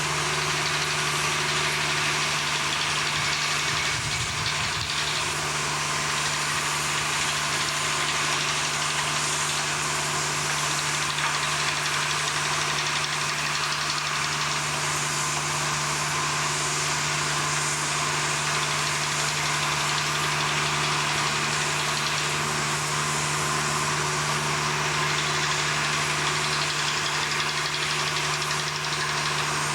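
Heavy machinery running steadily: a constant engine-like drone with a low hum, with a brief low rumble about four seconds in.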